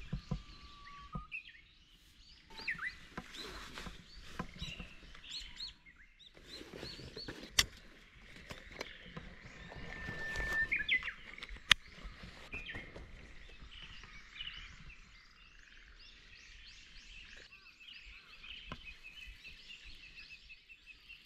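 Small birds chirping and whistling, with short rising and falling notes and a denser run of repeated chirps near the end. Two sharp clicks stand out in the middle, the second after a swell of rustling.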